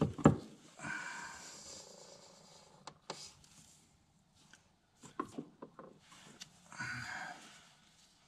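Light clicks and handling noise from a hand-pumped livestock drench gun squirting gear oil into a side-by-side's differential fill hole, with two short, soft hissing passages about a second in and near the end.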